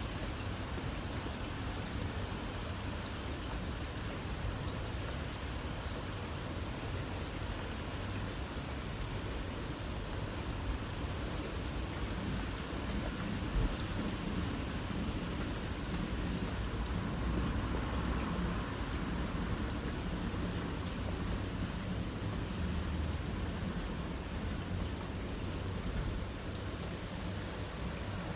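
Insects trilling steadily at a high pitch, with the soft hiss of light rain and a steady low rumble underneath.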